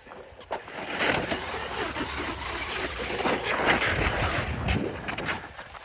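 Traxxas Maxx 4S electric RC monster truck driven hard over icy snow, its Pro-Line Trencher tires churning through snow and ice chunks. The noise picks up about a second in and drops away near the end.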